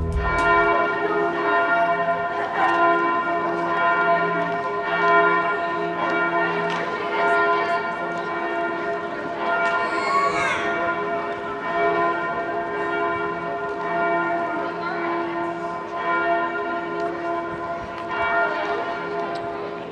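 Cathedral bells ringing from the towers of York Minster, several bells striking in turn so that their tones overlap and hang on continuously.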